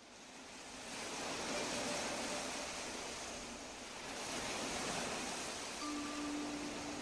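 Ocean surf sound fading in over the first second, then waves swelling and easing in a steady wash. A soft, steady ringing tone comes in near the end.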